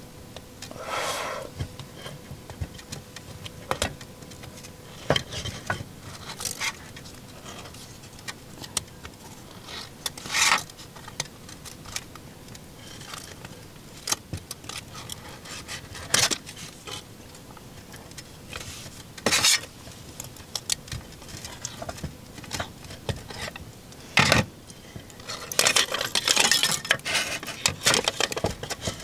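Thin aluminium drink can, blackened from cooking in the fire, being torn and peeled open by hand: crinkling and sharp metallic clicks against a wooden plate, coming in separate bursts with a longer, denser stretch of crinkling near the end.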